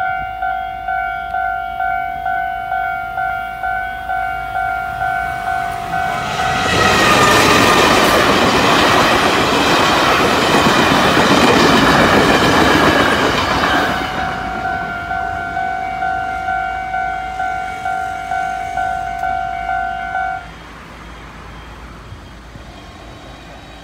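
Level crossing warning bell ringing in a steady pulsing ding, about one and a half strokes a second, drowned for about seven seconds by a passing Taiwan Railway sightseeing train's rush of wheel and rail noise, with a falling tone as the train comes by. The bell keeps ringing after the train has gone and stops suddenly near the end.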